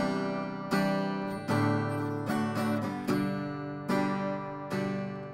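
Background music: an acoustic guitar strumming chords, one strum about every 0.8 seconds, each ringing out until the next.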